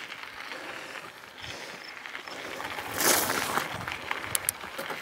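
Mountain bike riding noise: tyres rolling over a leaf-covered dirt trail, with a louder rush about three seconds in and a few sharp ticks shortly after.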